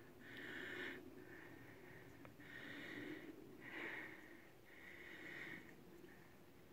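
Faint breathing, about five breaths in a row, each lasting roughly a second.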